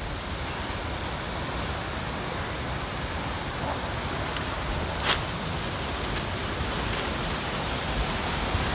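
Steady outdoor hiss of a light breeze through leafy plants, with a single sharp click about five seconds in and a few faint ticks after it.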